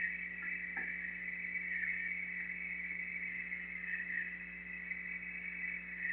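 A tree slowly giving way, its wood cracking faintly a little under a second in, over a steady high-pitched drone and a low hum.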